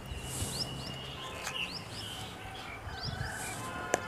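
Small birds chirping, many short quick high chirps repeated through the moment, over a low steady hum, with one sharp click near the end.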